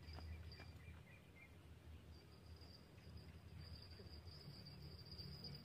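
Faint, steady high-pitched insect trill, cricket-like, that drops out briefly near the start and returns about two seconds in, growing stronger.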